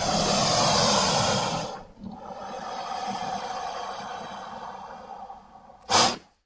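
Giant-snake creature sound effect: a loud breathy hiss lasting about two seconds, then a quieter, rougher drawn-out breath, ending with one short sharp burst of breath near the end.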